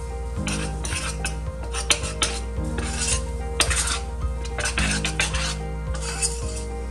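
Metal spoon stirring flour into liquid batter in a stainless steel pot, scraping and clinking against the pot in repeated strokes. Background music with steady held notes underneath.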